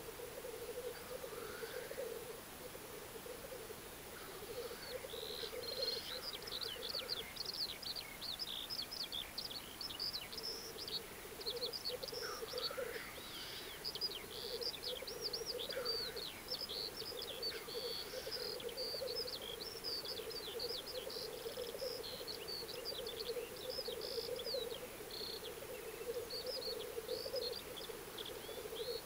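Black grouse cocks bubbling (rookooing) on the lek: a continuous low, burbling chorus. From about five seconds in, a small songbird chirps rapidly and high above it.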